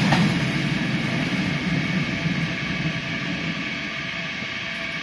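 An R68 subway train pulling away over the rails. Its running noise fades steadily as it recedes, with a steady whine.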